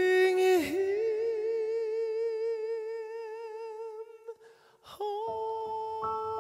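A male tenor holds one long, soft high note with an even vibrato, then it fades out about four seconds in. After a breath, piano notes come in near the end.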